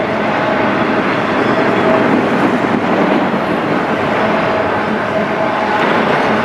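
Freight train of enclosed autorack cars rolling past at steady speed: a continuous rumble and rattle of steel wheels on rail, with a faint steady tone running under it.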